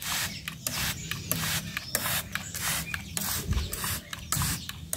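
Hand-held plastic trigger spray bottle pumped over and over, each squeeze a short hiss of water mist sprayed into a bird cage, about three squirts a second.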